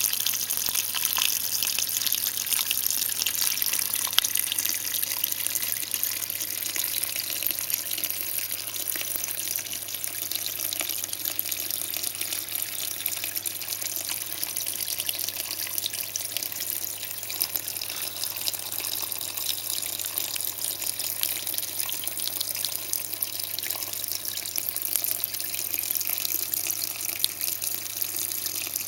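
A small vivarium waterfall trickling and splashing steadily.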